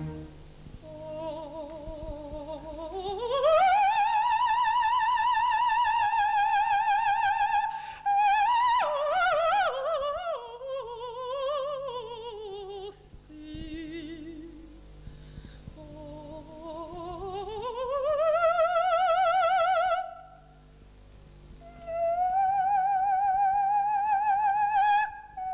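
Operatic soprano singing a slow aria with wide vibrato over a soft orchestral accompaniment. She slides up into long held high notes, runs down through a falling passage in the middle, and breaks off briefly about two-thirds through before taking another held high note.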